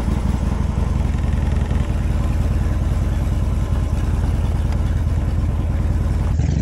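Harley-Davidson Dyna V-twin motorcycle engine idling steadily just after being started, a deep even rumble of rapid exhaust pulses.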